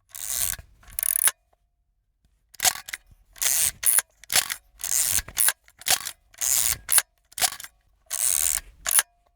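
Old camera's mechanism being worked: short whirring, rasping bursts, each followed by a sharp shutter click, repeated about once a second after a pause near the start.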